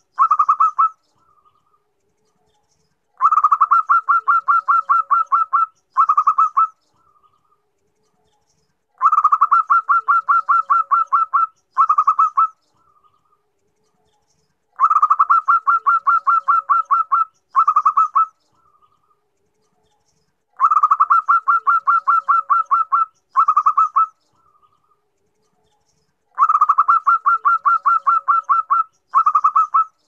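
Female zebra dove (perkutut) calling to attract a male. Each call is a rapid run of staccato coos lasting about two and a half seconds, followed by a short burst of a few more. The call repeats about every six seconds.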